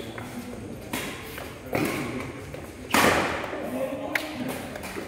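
Badminton rackets striking the shuttlecock during a doubles rally, three sharp hits about a second apart, the third the loudest, each echoing in the hall.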